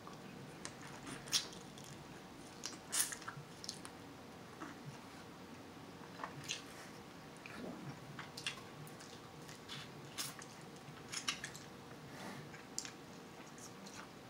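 A person eating king crab legs: scattered sharp crunches and cracks as the shell is bitten, with chewing between them. The loudest cracks come about a second in, around three seconds in, and again in a cluster near the end.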